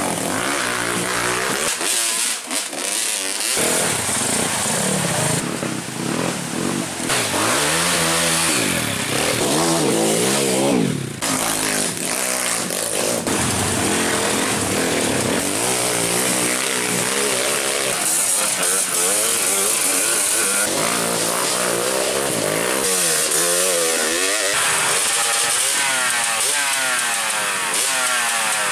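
Several off-road trail motorcycles' engines revving, their pitch rising and falling over and across one another.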